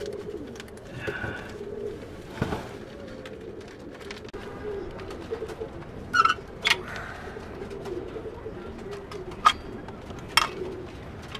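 Domestic pigeons cooing steadily in the coop. Several sharp clicks and knocks cut in, twice close together a little past the middle and again near the end.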